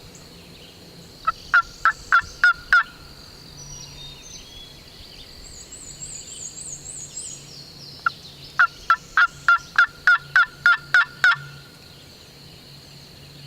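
Two runs of hen-turkey yelps on a turkey call, made to get gobblers to answer. The first is a short run of about six sharp notes, and a longer run of about ten follows some seconds later.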